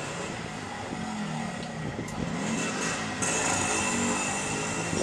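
A motor vehicle engine running nearby, its pitch wavering, over steady street background noise; a higher hiss joins about three seconds in.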